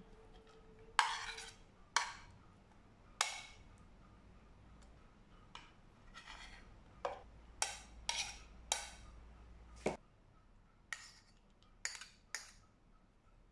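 Metal cutlery clinking and scraping against the edges of plates and a mixing bowl as chopped carrots, onions and garlic are pushed off into the bowl: a dozen or so sharp clinks at irregular intervals.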